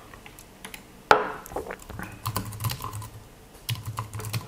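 Typing on a slim white low-profile keyboard: scattered, irregular key clicks, with one sharper, louder click about a second in.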